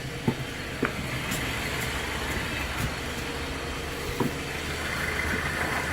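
Jeep Compass running in gear on a lift with its driveline and hanging wheels turning, a steady mechanical running sound with a few light clicks and a faint whine coming in near the end. It is the humming and grinding noise the owner is chasing, which he suspects may be a carrier bearing or wheel bearing.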